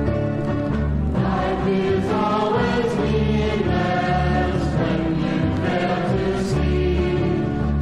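Early-1970s Christian folk song: voices singing over the band, with a bass line that moves about once a second.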